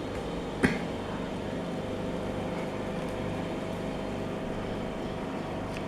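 Steady hum of aquarium equipment running, with one sharp click a little under a second in.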